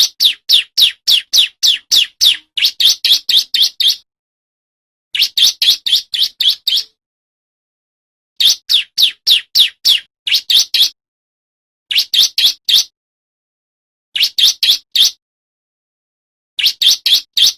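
Male bar-winged prinia (ciblek) singing loudly in rapid runs of sharp, high, repeated chirps, about three to four a second. The runs last one to four seconds each, with short silent pauses between them.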